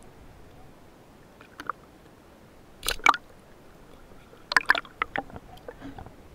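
Water splashing and slapping around a camera at the water's surface: a few sharp, short splashes, the loudest about three seconds in and a quick cluster about four and a half to five seconds in.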